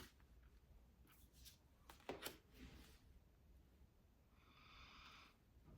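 Near silence: room tone with a few faint short ticks and a faint, brief higher tone about four and a half seconds in.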